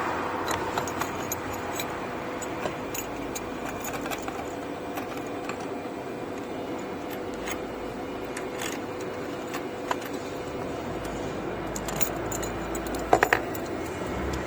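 Small metal parts clinking and rattling as clamps and tools are handled on the router table, with a quick run of sharp metallic clicks near the end. A steady machine hum runs underneath.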